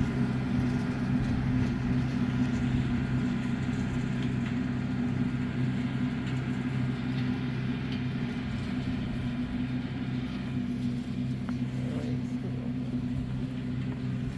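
Tractor engine running steadily as it drives a brush hog (rotary cutter) through brush, a constant low drone that slowly gets a little quieter toward the end.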